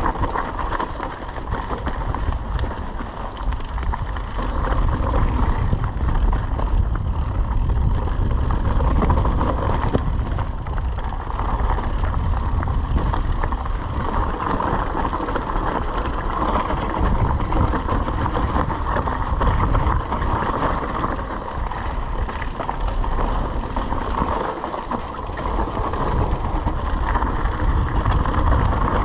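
Mountain bike descending a dry, rocky dirt trail: tyre noise on loose dirt and the bike rattling over the bumps, under a low rumble of wind on the camera microphone that swells and dips.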